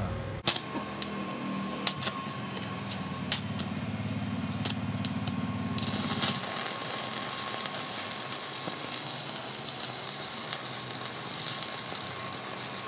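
Stick (MMA) welding arc from a Benz Werkz inverter welder set at 80 amps, the electrode burning on steel plate. The arc is struck about half a second in with sharp crackles and a low buzz, then settles about six seconds in into a steady, dense crackling sizzle.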